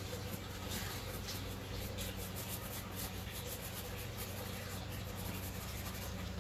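Chip brush stroking and dabbing across a chalk-painted wooden top: an irregular run of soft, scratchy bristle strokes, several a second.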